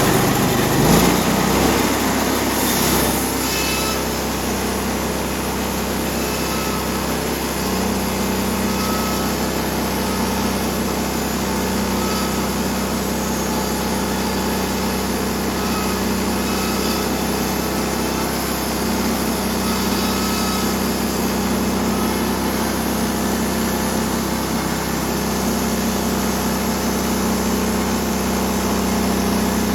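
Gas engine of a Norwood portable band sawmill running steadily while the blade cuts through an oak log. A few short knocks come in the first few seconds.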